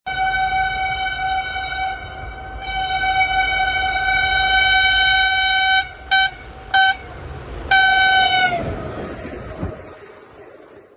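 Locomotive horn sounding on a train passing at speed: a long blast, a second longer blast, two short toots, then a final blast that drops in pitch as it ends. A low rumble from the train runs underneath and fades away afterwards.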